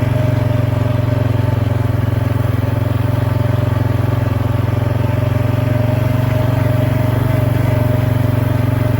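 John Deere 5085M tractor's diesel engine running steadily, a loud even drone with a thin steady whine above it.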